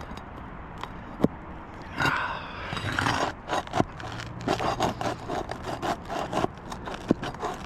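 A hand tool scraping and prying under asphalt roof shingles to work the nails out, in rough bursts with a few sharp clicks and knocks.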